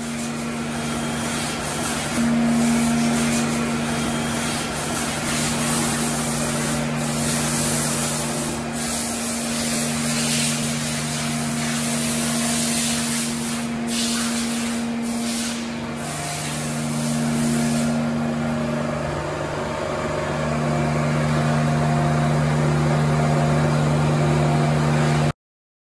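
Running industrial machinery: a steady loud hiss over a low electric-motor or pump hum on two steady pitches that trade strength back and forth. The hiss thins about 18 seconds in, and the sound cuts off suddenly near the end.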